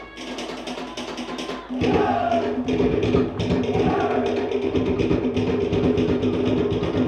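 Cook Islands drum ensemble playing for the dance: wooden log drums beat a fast, even rhythm, and about two seconds in deeper drums and voices join and it gets louder.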